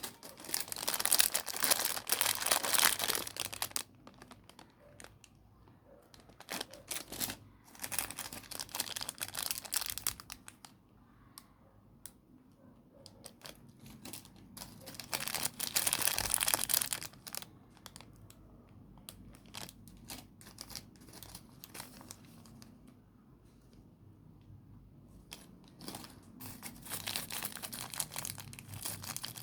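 Packaging being crinkled and torn open by hand, in four loud spells of rustling and tearing with quieter handling between.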